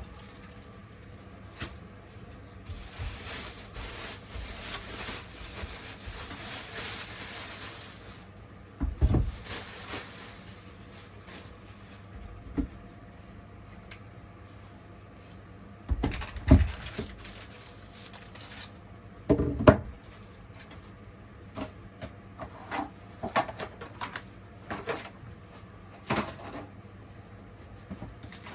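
Chainsaw parts being handled and fitted by hand: scattered knocks and clicks of plastic and metal pieces set down and pushed together, with a rustle of packaging for a few seconds near the start.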